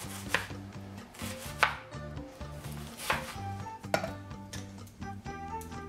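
Kitchen knife chopping onion on a cutting board: four sharp strokes, each a second or more apart, over background music.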